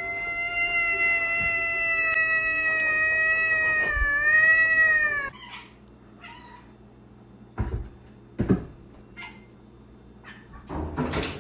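A cat's long, drawn-out meow held for about five seconds, wavering in pitch near the end before it cuts off. Afterwards come a couple of short thumps.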